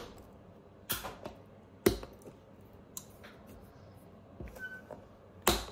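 Steel pincers clicking and knocking against the nailed heel seat of a leather boot: a few sharp, irregularly spaced clicks with quiet between them, the sharpest about two seconds in.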